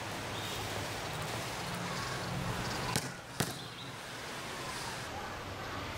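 A basketball bouncing twice on a hard court, two sharp slaps under half a second apart about three seconds in, over a steady low background hum.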